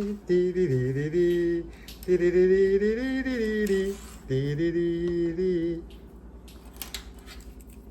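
A voice singing a melody in three drawn-out phrases, with short breaks between them. It stops near the end, leaving faint ticking sounds.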